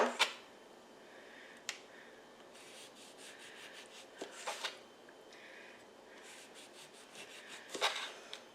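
Knife slicing thinly through an orange on a plate: soft sawing strokes with a few sharp clicks of the blade on the plate, the loudest near the end.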